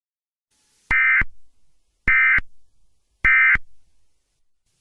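Emergency Alert System end-of-message (EOM) data tones: three short, identical bursts of buzzing digital SAME data signal, each about a third of a second long and a little over a second apart, marking the end of the alert.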